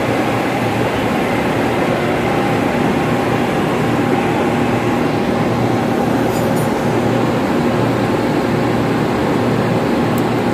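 Steady loud drone of running air-handling fan machinery, an even rush of air with a constant hum under it. A few light clicks come through, one about six seconds in and a couple near the end.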